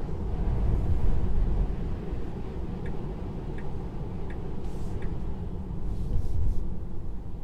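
Road noise inside the cabin of a Tesla Model 3 electric car driving on a wet road: a steady low rumble of tyres on wet tarmac, with no engine note. Four light ticks come a little under a second apart midway through.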